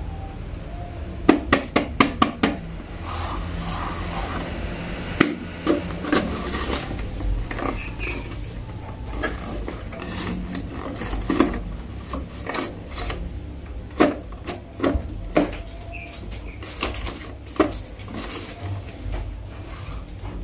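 Paper poster being poked with a pointed tool and torn open by hand. A quick run of sharp taps comes a second or two in, then scattered crackling and ripping of the paper.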